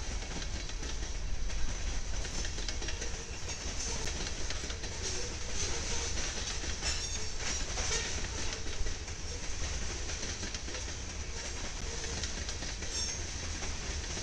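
Union Pacific freight train with a consist of several diesel locomotives rolling past: a steady low engine rumble under the hiss of steel wheels on rail, with scattered clicks as the wheels cross rail joints.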